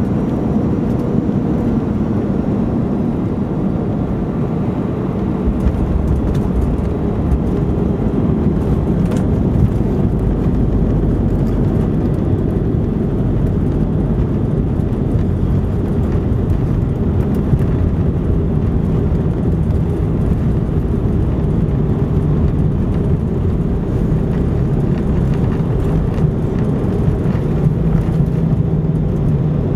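Cabin noise of an Airbus A319 on its landing rollout: a steady rumble of the engines and the wheels on the runway, growing deeper and a little louder about six seconds in.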